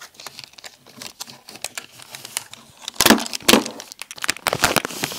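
Plastic packaging bag crinkling and crackling as a keyboard is pulled out of it, in irregular rustles with a loud burst about three seconds in and more near the end.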